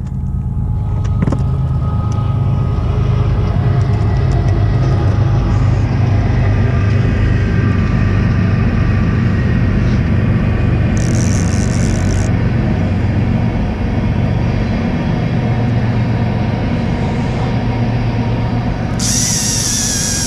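Deep, steady diesel rumble of a towboat pushing a barge past on the river. A brief high hiss comes about eleven seconds in and again near the end.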